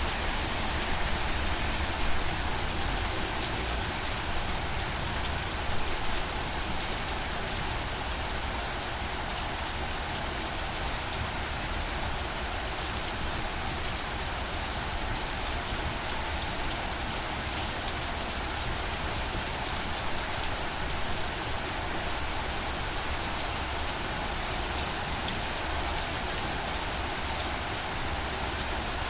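Steady rain falling on a surface, a dense even hiss of many drops with a low rumble underneath.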